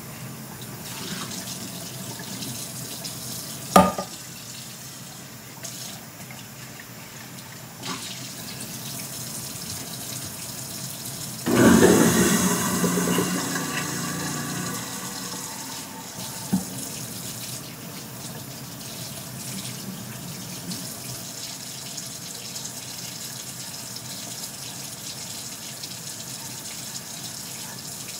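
Kitchen faucet running steadily into a steel sink while a saucepan is rinsed under it, with a few sharp knocks of the pan against the sink. About twelve seconds in comes a much louder surge that fades over two or three seconds.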